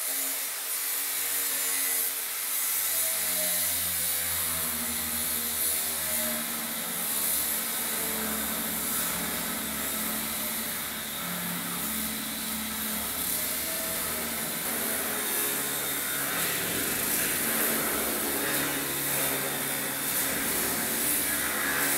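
Angle grinder with a cutting disc slicing through the steel along the back of a loader bucket's worn wear edge, a steady loud hiss of disc on steel with the motor's pitch wavering as it is worked along the cut.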